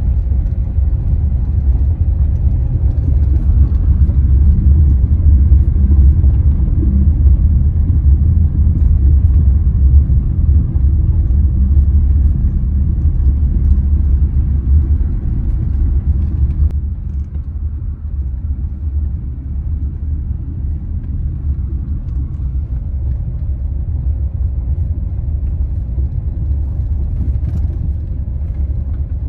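Steady low rumble of a car driving, heard from inside the cabin; it eases somewhat about seventeen seconds in.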